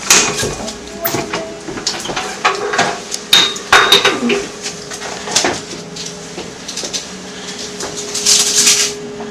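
Metal and glass utensils clinking and knocking irregularly, with a steady low hum underneath and a short burst of hiss near the end.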